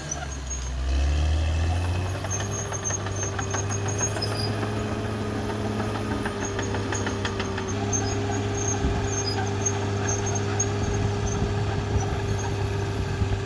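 Caterpillar D6R XL bulldozer's diesel engine running steadily, its pitch and loudness rising about a second in. A run of rapid clicking comes through in the middle.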